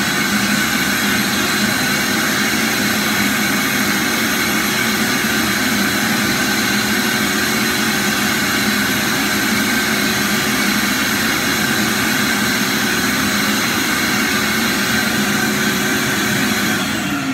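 Shop vacuum running steadily with a constant whine as its nozzle sucks loosened grout from the joints of travertine floor tiles. It winds down right at the end.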